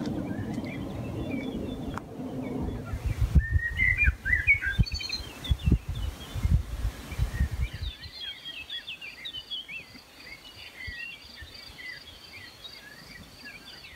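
Several songbirds singing and chirping in woodland, with quick high notes throughout and, from about halfway through, a fast, even run of high repeated notes alongside. During the first half a heavy low rumble and buffeting, the loudest sound, lies under the birdsong, then dies away.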